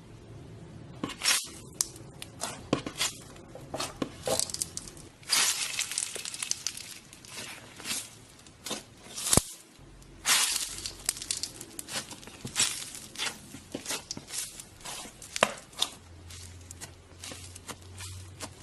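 Hands squeezing, stretching and poking slime, making a run of sticky crackles, pops and tearing sounds, with longer swishing stretches about five and ten seconds in.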